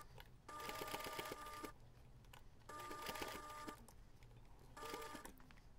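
Domestic electric sewing machine stitching bias binding in three short runs with pauses between, its needle ticking rapidly over a steady motor whine.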